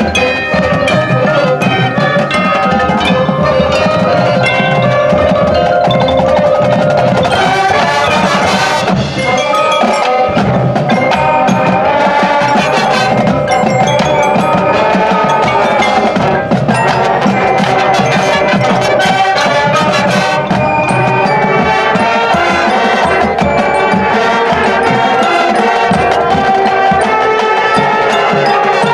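High school marching band playing its field show: a hornline with pitched mallet percussion and drums, loud and continuous.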